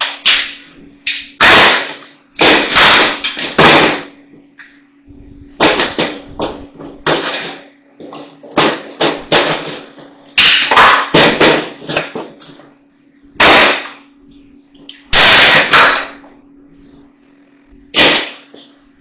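Plastic housing of a Shark vacuum cleaner being forced apart by hand, with a series of loud cracks, snaps and scraping, each lasting up to about a second.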